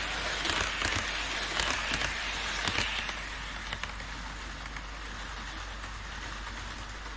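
HO scale model train running on KATO Unitrack, a steady rattling hiss of small wheels on the rails with many quick clicks at the rail joints. It is louder for about the first three seconds, then eases off.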